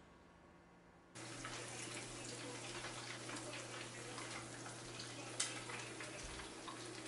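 Shrimp tempura crackling and sizzling in hot deep-frying oil, starting suddenly about a second in, with a low steady hum underneath. A single sharp click about five seconds in.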